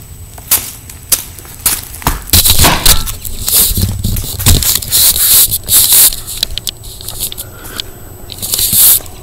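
Handling noise on a phone's microphone: irregular crackling and scraping as the phone is picked up and rubbed against clothing.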